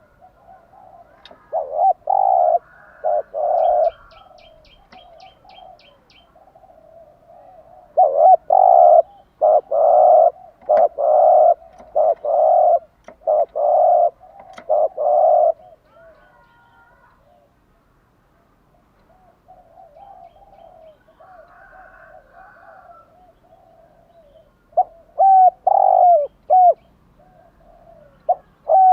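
Spotted dove cooing: groups of low, loud coos, with a long run of about seven coos in the middle, softer quieter cooing after it, and short clipped notes near the end. A faint rapid high chirping is heard early on alongside.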